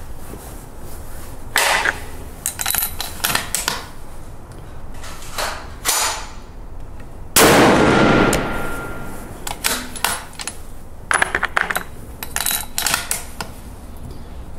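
One loud rifle shot about seven seconds in, ringing on for a couple of seconds under the range's roof. Many shorter sharp cracks and metallic clicks come before and after it.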